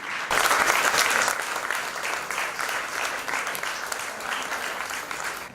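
Audience applauding, strongest just after it starts and slowly fading.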